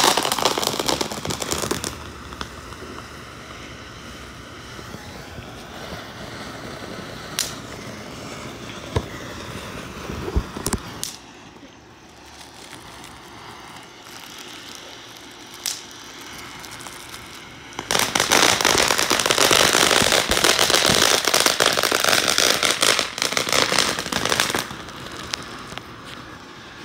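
Ground firework fountains spraying sparks with a dense hiss and crackle, loud at the start and again for several seconds past the middle. In between, a quieter stretch is broken by a few scattered sharp pops.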